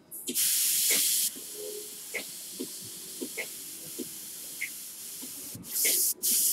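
Dual-action airbrush spraying acrylic paint: a loud hiss of air for about a second, then a lighter, steady hiss, then a second loud hiss near the end. A few faint ticks can be heard over it.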